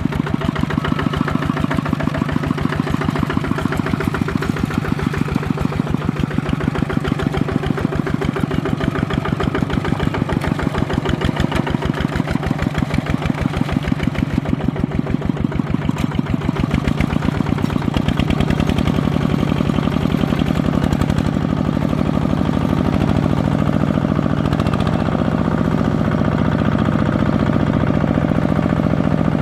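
Single-cylinder diesel engine of a Kubota RT155 two-wheel walking tractor chugging steadily under load as it pulls a disc plough through flooded paddy mud. A little past two-thirds through, the rapid beat blurs into a steadier drone.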